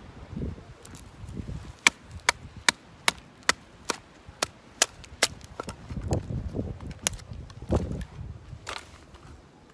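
Firewood being split by batoning: a baton striking the back of a blade driven into a piece of wood. About ten sharp knocks come at a steady pace of two or three a second, with duller low thumps before and after.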